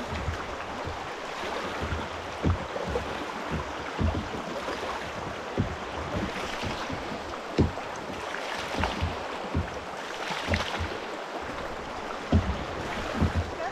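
Shallow river rapids rushing steadily around a stationary kayak, with scattered low thumps.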